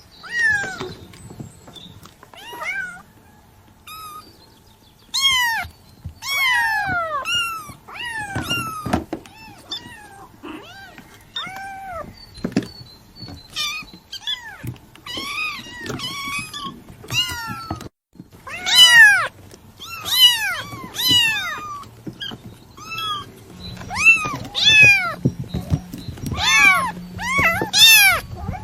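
Kitten meowing over and over: many short, high-pitched mews, each rising then falling, coming once or twice a second and getting louder in the second half.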